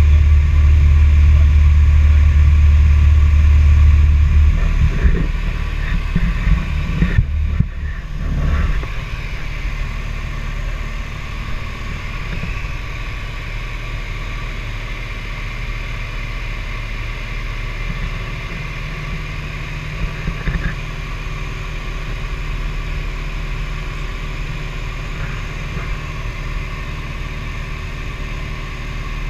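Steady drone of a light aircraft's piston engine and propeller, heard inside the cabin in flight. It is loudest for the first few seconds, then settles somewhat quieter, with a few short knocks soon after.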